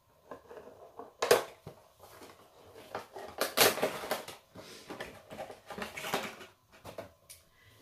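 A Funko Pop's cardboard window box and plastic insert being opened and handled: irregular crinkling, scraping and clicking of cardboard and plastic, with a sharp snap about a second in.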